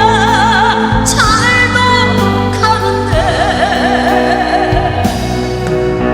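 Background music: a sung melody holding long notes with a wide vibrato over a steady bass accompaniment.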